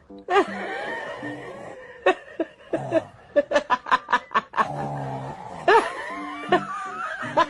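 A baby imitating snoring with a long breathy sound, followed by a woman laughing in a run of quick short bursts.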